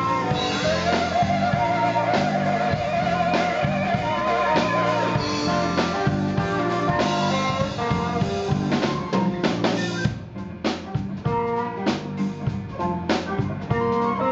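Live blues band playing an instrumental passage: electric guitar, flute, electric bass and drum kit. A long held note with wide vibrato rings out in the first few seconds, and about ten seconds in the band drops back to a sparser, quieter groove.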